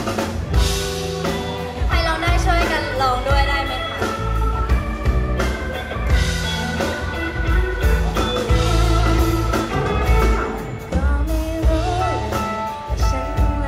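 Live pop band performance: a woman singing lead into a microphone over a full band with drums, loud and continuous.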